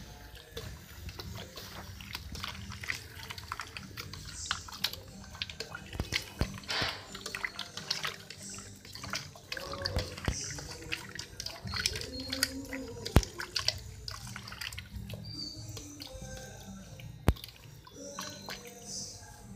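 Hands kneading and mixing raw chicken pieces in a wet marinade in a pot: wet squelching and splashing with many small clicks, and two sharp knocks, one about two-thirds of the way through and one near the end.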